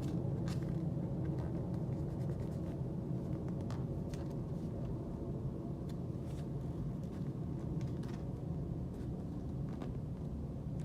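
A steady low hum or rumble, with a few faint clicks scattered through it.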